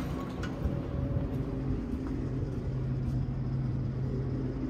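Elevator car running: a steady low hum and rumble with a held low drone that comes in about a second in.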